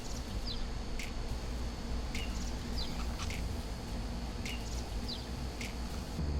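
Repeated high chirping over a low steady hum: a sharp tick about once a second, with a short falling chirp every couple of seconds.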